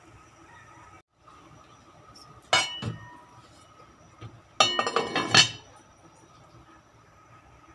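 Pot lid being set onto a black cooking pot: a sharp clink about two and a half seconds in, then a cluster of clattering metal clinks nearly two seconds later as the lid settles into place, over a faint steady hum.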